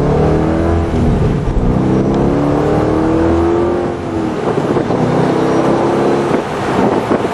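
Car engine accelerating, heard from inside the cabin: its note climbs, falls about four seconds in, and climbs again. Road and wind noise grows rougher near the end.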